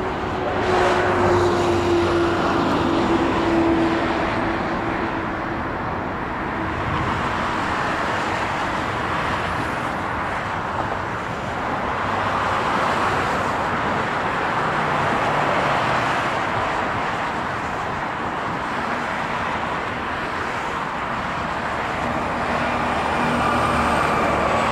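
Boeing C-17 Globemaster III's four Pratt & Whitney F117 turbofan engines at climb power as it flies away after takeoff: a steady, broad jet noise, with a falling tone in the first few seconds.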